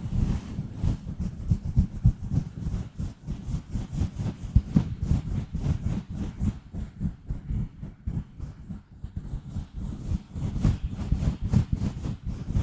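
ASMR microphone scratching: gentle scratching and rubbing directly on the microphone in rapid, uneven strokes, mostly a dull low rumble with a light scratchy hiss on top.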